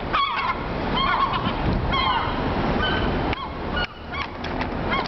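Seagulls giving repeated short, harsh alarm calls, each rising then falling in pitch, several in quick succession: the mobbing calls of gulls defending a nearby chick.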